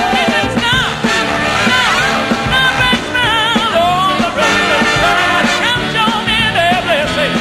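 A live orchestra playing a brisk song with a steady beat, with a singer's wavering held notes over it.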